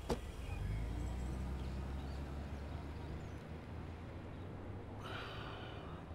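A car door shuts with a sharp click, then the car's engine rumbles low as it drives off, fading after a few seconds. About five seconds in, a wounded man gives a short gasping breath.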